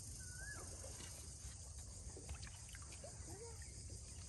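Faint river-side ambience: light water sloshing and small drips or ticks over a steady high insect drone, with a few short chirping calls.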